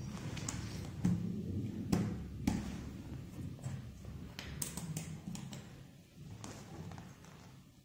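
Jigsaw puzzle pieces being set down and pressed into place on a hard surface: scattered light taps and clicks at an irregular pace, the sharpest about one and two seconds in.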